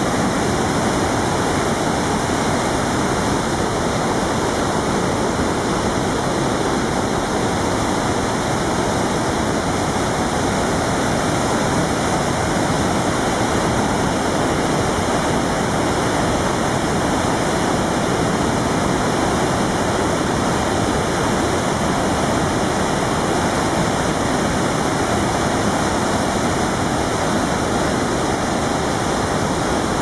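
Muddy brown river water in flood pouring over wide falls of rock ledges: a loud, steady, unbroken rush of falling water.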